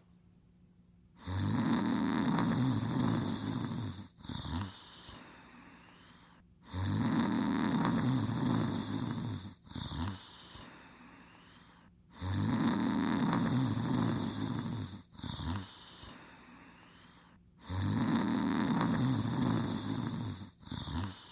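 Cartoon character snoring: four matching snores about five and a half seconds apart. Each is a long, rattling breath in, a short catch, and then a softer breath out.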